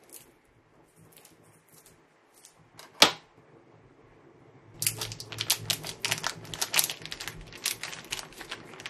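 Plastic sausage packet being torn open and crinkled, a dense crackling from about five seconds in. Before it, one sharp snap about three seconds in.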